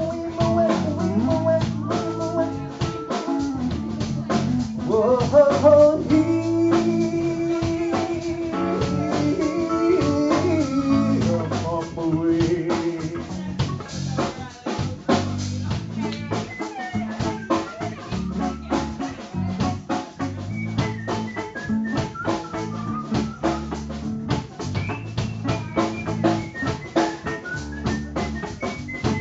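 Live band playing guitar over a drum kit. Held, bending melody lines carry the first half, and the drumming grows busier in the second half.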